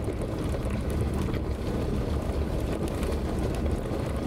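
Toyota Hilux pickup driving along a rough grass farm track, heard from inside the cab: a steady low engine and tyre rumble with small scattered knocks and rattles.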